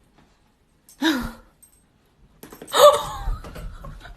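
A person's voice making non-word vocal sounds: a short cry about a second in, then a longer, louder one with a low rumble under it from about two and a half seconds.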